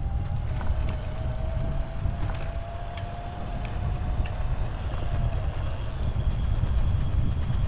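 Wind on the helmet or handlebar camera's microphone and road rumble from a Brompton folding bike riding along, a dense low rumble throughout. A faint steady hum runs alongside until about five and a half seconds in, with a few faint light clicks.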